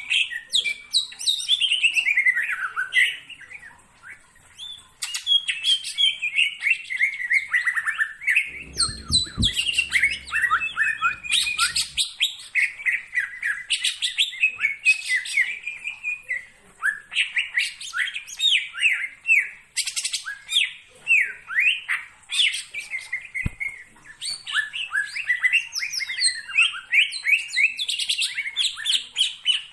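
Caged greater green leafbird (cucak ijo) singing a long, rapid run of varied chirps and quick up-and-down whistled notes, with only brief pauses.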